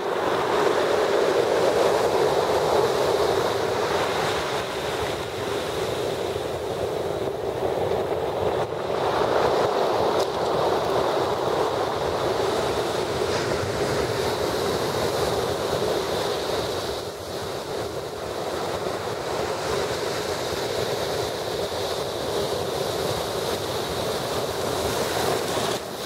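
Storm surf on the Black Sea: heavy waves breaking and washing over a pebble and rock shore, a continuous rush of churning water that swells and eases.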